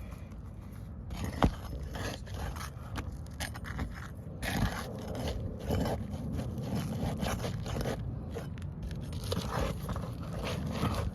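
Irregular scraping and crackling against asphalt roof shingles, with a sharp knock about one and a half seconds in.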